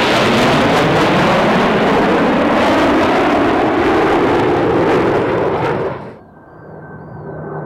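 Blue Angels F/A-18 Hornet jets passing low overhead: a loud jet roar whose pitch slides as they pass. About six seconds in it cuts off abruptly, leaving fainter, more distant jet noise with a steady whine.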